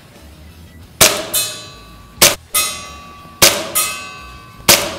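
WE Makarov gas blowback airsoft pistol fired four times, about a second apart. Each sharp shot is followed a fraction of a second later by the clang of a BB striking a steel target, which rings on for a moment.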